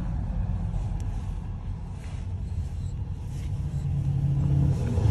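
Steady low rumble of a car's engine and road noise, heard inside the cabin.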